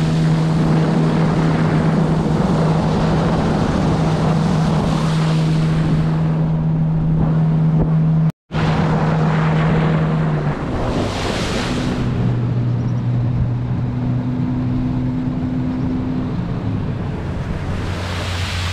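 A vehicle engine running at a steady speed under a loud rush of wind on the microphone. About halfway through its pitch drops, and it drops again near the end as the engine slows down.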